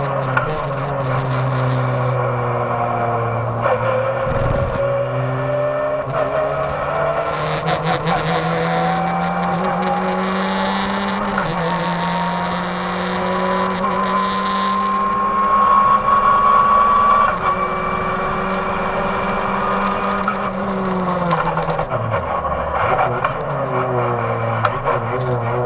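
Race car engine heard from inside the cabin, pulling hard with its pitch climbing slowly and a small drop about halfway through as it shifts up. About three-quarters of the way in, the revs fall away as it slows, then pick up again near the end.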